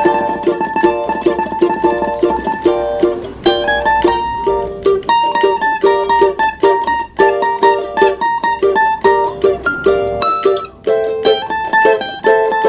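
A small plucked steel-string instrument playing a samba melody in quick picked notes.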